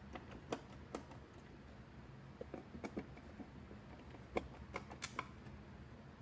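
Irregular light clicks and taps of concealed cabinet hinge hardware being handled and adjusted.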